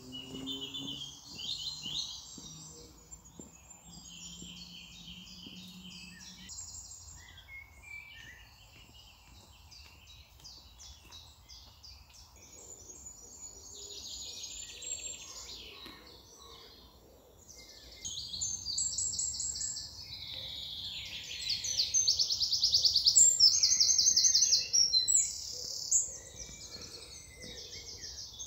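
Several songbirds singing together, a mix of chirps, trills and quickly repeated notes, growing louder and busier in the second half.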